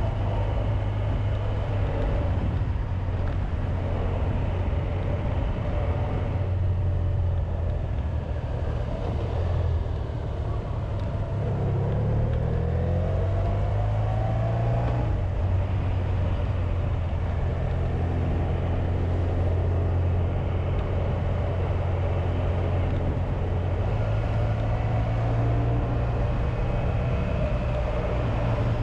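Honda VFR1200X Crosstourer's V4 engine running under way, with steady low engine drone and wind and road noise; the engine pitch rises about halfway through as the bike accelerates.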